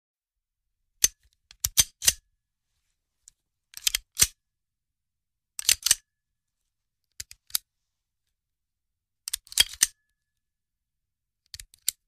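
Handgun being handled: six short clusters of sharp metallic clicks and clacks, each group a second or two apart with silence between.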